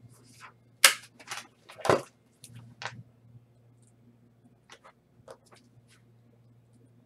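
A handful of sharp clicks and short rustles from objects being handled, the loudest two about a second apart near the start, over a low steady hum.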